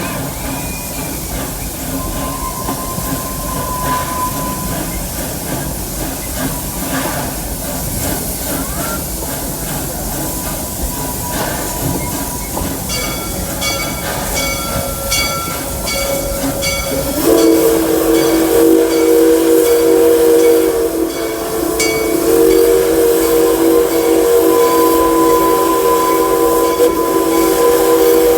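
Steam locomotive of a park railroad running with a steady hiss and rumble. About halfway, regular ringing strikes start, like its bell, at roughly one and a half a second. A few seconds later the steam whistle blows a loud multi-note blast, breaks off briefly and blows again.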